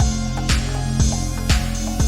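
Electronic background music with a steady drum beat of about two hits a second over a sustained bass line.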